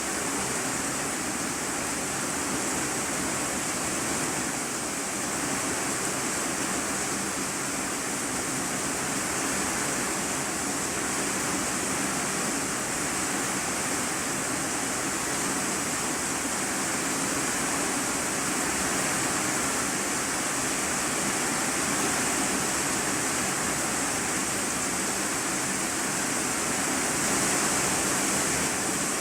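Steady heavy rain falling on an iron-sheet roof, heard from the room beneath it, swelling slightly near the end.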